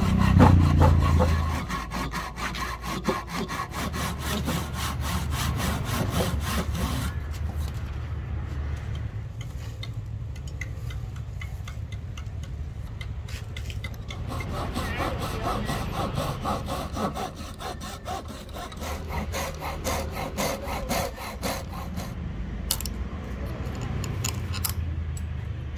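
Wood being worked by hand with a cutting tool in rapid, regular back-and-forth strokes, each stroke a short scratchy rasp.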